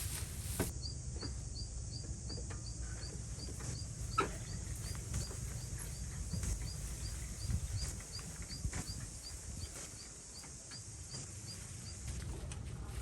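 A short, high chirp repeated evenly about three times a second, typical of a small animal calling, over a low rumble with a few scattered clicks.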